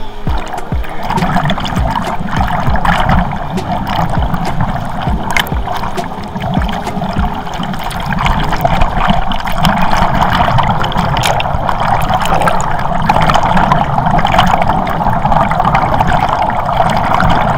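Whirlpool air jets of a thermal spa pool churning and bubbling the water right at the microphone: a loud, steady rush of water.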